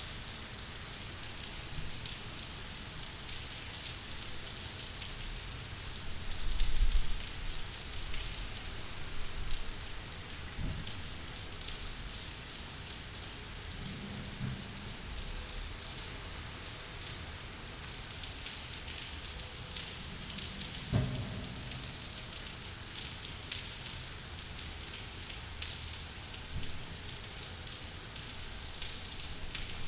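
Steady rain falling and pattering, with a brief low rumble about six seconds in and a few low thuds later on.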